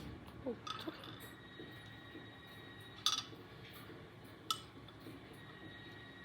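A few light clinks of a small hard object, about half a second in, at three seconds (the loudest) and at four and a half seconds, each time leaving a thin ringing tone that lingers.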